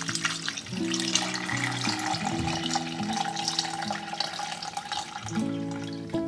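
Cold water poured from a glass jug onto raw pork spare ribs in a glass pot, splashing steadily for blanching; the pouring stops about five seconds in. Soft background music plays underneath.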